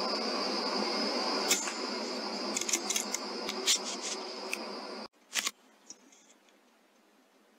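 A sharp click from a .22 air rifle shot at a brown rat, about one and a half seconds in, followed by a scatter of smaller clicks and ticks. A steady hiss with a high whine sits under them and cuts off suddenly about five seconds in, followed by one more click.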